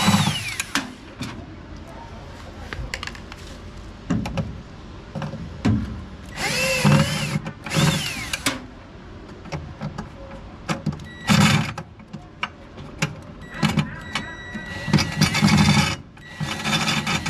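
Work sounds from taking apart a top-loading washing machine: irregular bursts of clatter, knocks and scraping of parts, with a few short rising-then-falling whines.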